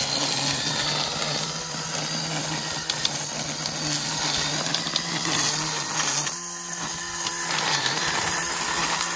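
Cordless battery string trimmer running on its low speed setting: a steady electric motor hum under the noisy swish of the line cutting through weeds and grass, with scattered ticks of debris. The cutting noise drops off briefly about six seconds in, then picks up again.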